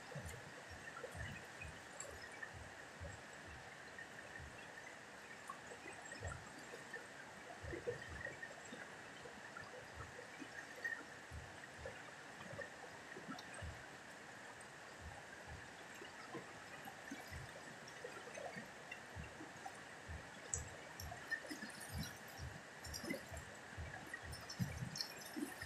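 A muddy river flowing steadily, a constant rushing hiss of moving water, with frequent soft low thumps. Small splashes come in the last few seconds, as someone in the shallows by the rocks splashes with his hands.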